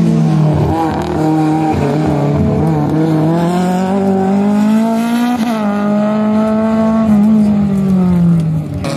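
Race car engine running hard on a circuit, its note climbing slowly for about five seconds, holding, then falling away near the end.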